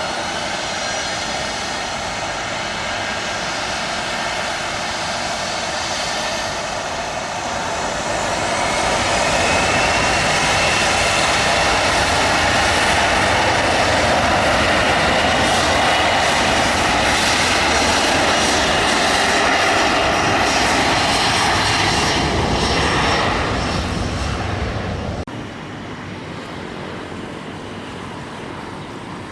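Boeing 737 jet engines running with a steady rushing sound. It grows louder about eight seconds in and stays loud, then drops off sharply about twenty-five seconds in, leaving a quieter steady noise.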